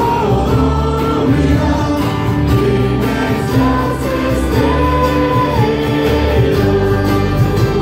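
Congregation and worship band performing a gospel-style worship song, voices holding long sung notes over a steady bass accompaniment.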